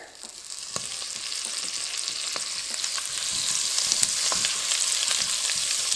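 A pat of butter sizzling as it melts in hot oil in a ceramic nonstick pot, being pushed around with a silicone spoon. The hiss builds over the first couple of seconds and then holds steady, with a few faint pops.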